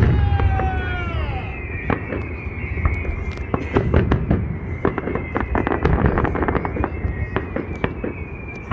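Fireworks salute: a heavy boom at the start, then several whistles falling in pitch for about a second and a half. After that come dense sharp crackles and bangs over a low rumble, with a high steady whistle held throughout.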